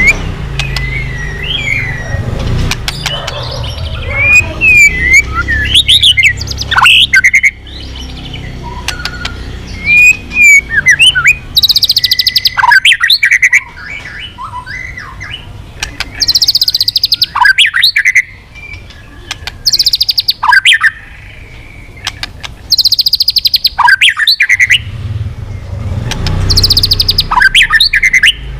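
White-rumped shama singing: varied whistled phrases sliding up and down in pitch, broken by four loud, harsh, rapid rattling bursts about 12, 16, 23 and 27 seconds in.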